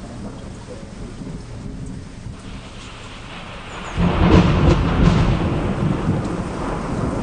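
Steady rush of a flooded river, with a loud low rumble that swells up suddenly about four seconds in and keeps on.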